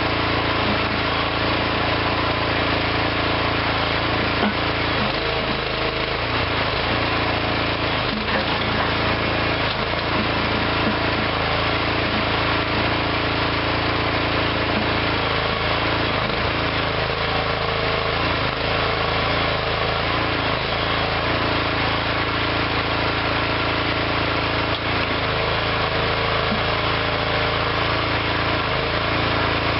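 Small engine of a DIY hydraulic backhoe running steadily at a constant speed, with a few faint knocks.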